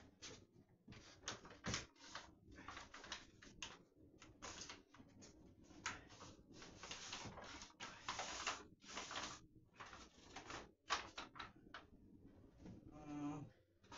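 Pleated blackout shade rustling and crinkling in irregular bursts as it is handled and pressed against the top of a window frame.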